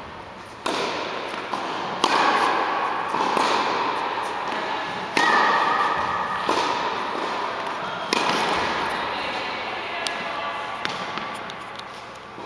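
Tennis balls being struck and bouncing on an indoor court: about five sharp pops a second or more apart, each followed by a long echo around the hall. The loudest come about two and five seconds in.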